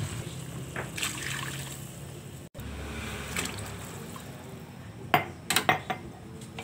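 Hot water poured in a steady stream into a wide pan of shredded chicken for soup broth. Near the end there are a few sharp clinks.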